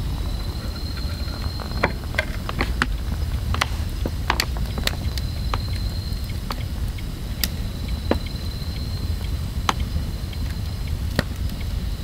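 Campfire crackling, with irregular sharp pops over a steady low rumble. A thin high steady tone runs alongside and breaks off for a few seconds in the first half.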